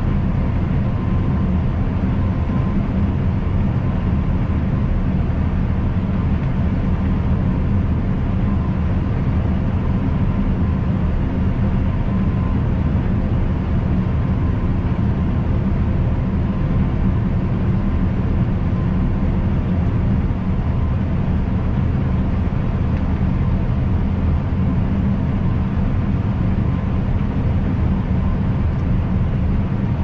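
John Deere combine harvester running steadily at working speed, its engine and machinery making a continuous drone while the unloading auger empties grain into a trailer.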